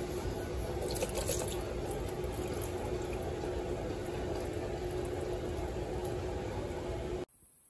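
Water running from a kitchen tap while raw chicken wings are rinsed in a plastic bowl of water, a steady rush that cuts off suddenly near the end.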